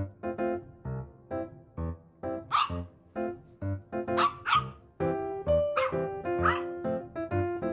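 A dog barking five times in short yaps, once about two and a half seconds in, a quick pair past four seconds, then two more near six seconds, over bouncy piano background music.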